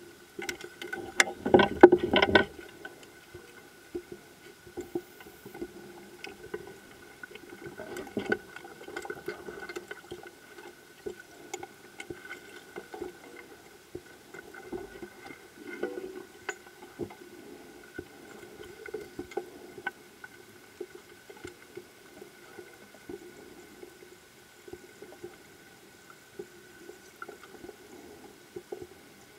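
Underwater sound: a steady hum of several held tones with scattered clicks and crackles, and a loud burst of bubbling gurgle about two seconds in.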